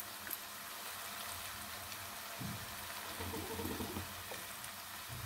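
Semolina pua batter frying in oil in a pan on a low-to-medium flame: a faint, steady sizzle of oil bubbling around the batter.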